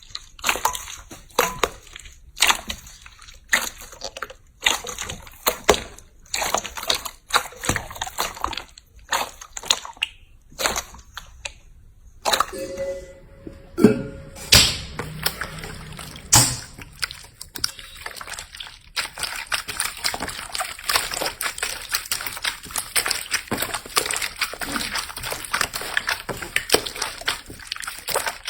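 Slime being pressed, poked and squeezed by hand, making wet squelching, sloshing sounds with sharp crackling pops. The first part has separate squishes about twice a second; after about 19 seconds the crackling turns dense and continuous.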